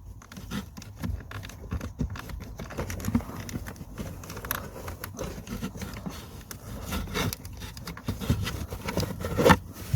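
Cabin pollen filter being pulled out of its plastic housing: scraping and rustling of the filter against the slot, with many small clicks and knocks and a louder knock near the end.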